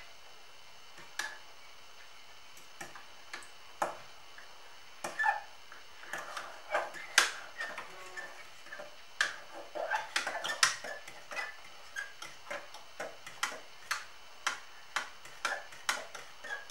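Metal fork clinking against the inside of a ceramic jug while stirring yeast into lukewarm water to dissolve it: irregular light clinks, sparse at first and coming much more often from about six seconds in.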